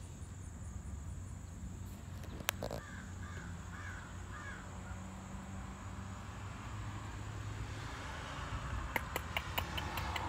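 A crow cawing four or five times in quick succession about three seconds in, over a steady low hum. A run of sharp light clicks comes near the end.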